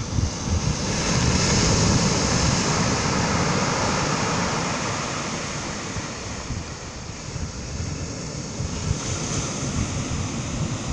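Ocean surf breaking and washing up a pebble beach, swelling about a second in and easing off, then a second wash near the end. Wind buffets the microphone underneath.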